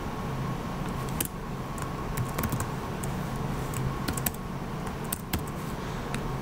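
Irregular keystrokes on a computer keyboard as code is typed, over a steady faint hum.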